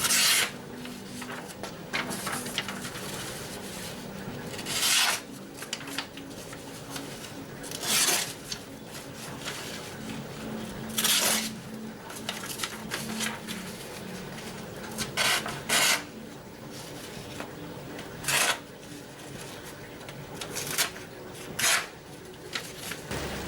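Sharp high-carbon steel blade of a folding pocket knife slicing through paper: about nine short rasping cuts, a few seconds apart.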